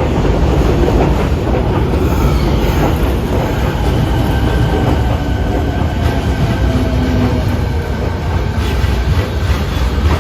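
Fukuoka City Subway 1000N-series electric train moving through a station: a loud low rumble with wheel clatter, and steady whining tones rising out of it in the middle, part of the jet-plane-like whine these trains are known for.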